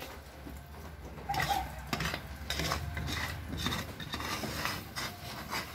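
A spatula stirring and scraping around a metal pot of boiling muscovado sugar syrup as it cooks down toward caramel, in irregular strokes that begin about a second in.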